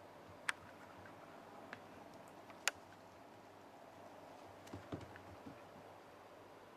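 Sparse sharp clicks and light knocks of a small toy ball dropped and batted about by a cat on a hardwood floor: two louder clicks in the first three seconds, then a short cluster of duller knocks about five seconds in.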